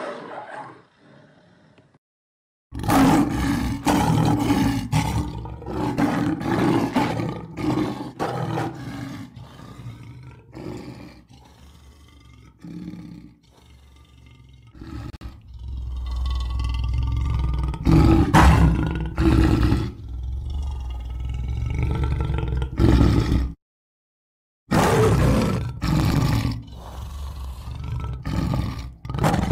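Lions roaring: a run of deep, pulsed roars and grunts in repeated strokes, broken by two short silences where one roaring bout ends and another begins.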